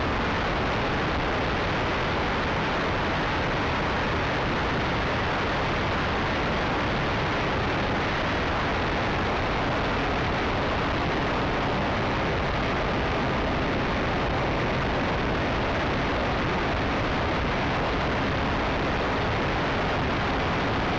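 Yak 54 RC model plane's gasoline engine and propeller running steadily in flight, heard from a camera on the tail as a constant, even rush of engine and wind noise over the microphone.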